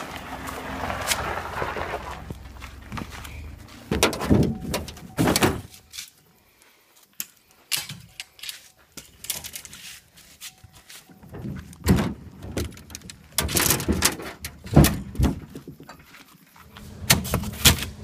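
Irregular knocks and clunks of gear being moved about, coming in clusters with a quiet lull partway through, and a stretch of rustling handling noise at the start.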